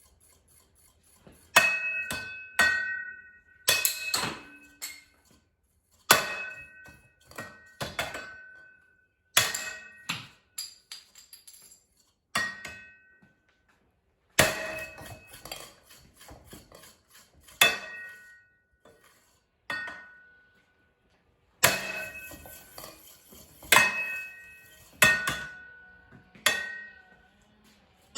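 A Deluxe Showroom ceiling fan being struck hard again and again at irregular intervals, often two blows close together. Many blows leave a short metallic ring from the fan's housing.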